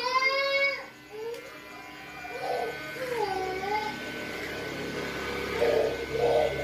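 A small child crying in several wails that rise and fall, with electric hair clippers buzzing steadily underneath.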